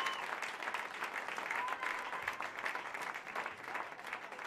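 Concert audience applauding at the end of a song, a dense steady clapping that eases off slightly near the end.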